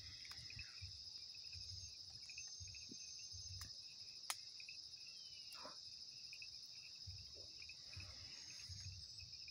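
Night insects, crickets, chirping in a steady high-pitched chorus, with a second pulsing trill beneath it. A single sharp click comes about four seconds in.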